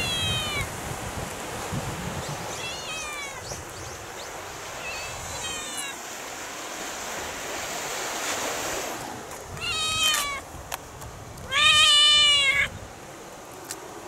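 A cat meowing five times over a steady hiss of wind and surf. The meows fall in pitch at their ends. The first three are softer, and the last two are louder, the final one the longest and loudest.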